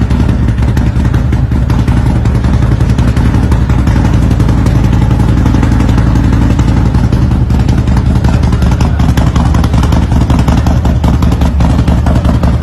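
Harley-Davidson V-twin motorcycle engine running steadily and loudly through its exhaust, with a rapid even firing pulse and no big revs.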